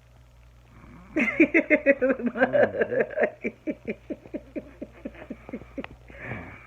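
A person laughing: a long run of quick 'ha' bursts, about five a second, loud at first and trailing off, then a breath drawn in near the end.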